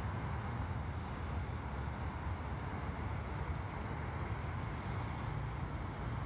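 Steady rumble of freeway traffic, an even wash of noise without distinct events.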